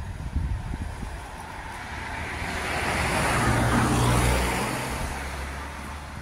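A car passing on the road, its tyre and engine noise growing to a peak about halfway through and then fading away.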